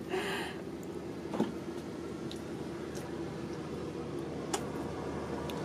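Faint squelching of fingers pressing and working sticky homemade glue slime on a tabletop, with a few light ticks, over a steady low hum.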